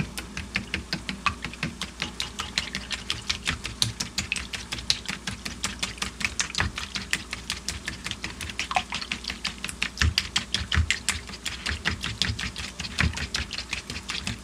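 A fork beating raw eggs in a bowl for an omelette, a fast steady run of light clicking strokes, several a second, as the tines hit the bowl.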